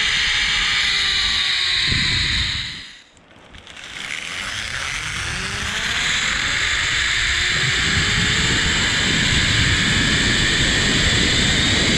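Zipline trolley pulleys running along the steel cable, a whine over rushing wind on the microphone. The whine slides down in pitch and the sound drops away sharply about three seconds in, then builds back up with a rising whine.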